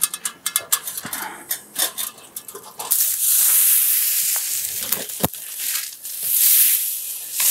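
Dry pruned eucalyptus branches and leaves crackling with many small snaps, then, from about three seconds in, a loud, dense rustling as armfuls of the dry cuttings are gathered and dragged, with one sharp snap partway through.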